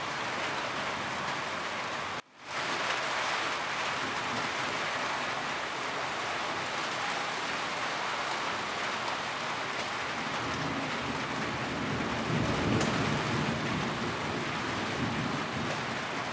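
Steady rain falling on a roof, an even hiss of drops. The sound cuts out for a split second about two seconds in, and a low rumble swells briefly near the end.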